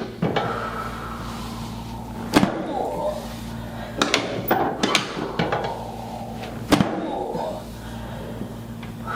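Chiropractic thrusts on the lower back: a series of sharp cracks and knocks, the loudest about two and a half and about seven seconds in, with short vocal sounds between them.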